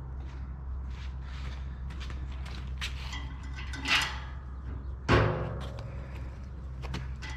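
Steel stove-kit parts being handled on a steel drum: scattered light clicks and knocks, a scrape about four seconds in, and a loud ringing metal clank about five seconds in, over a steady low hum.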